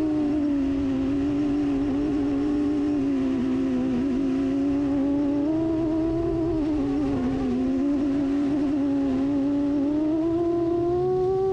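FPV drone's motors whining, the pitch wavering with the throttle. The tone dips about two-thirds of the way through and climbs near the end.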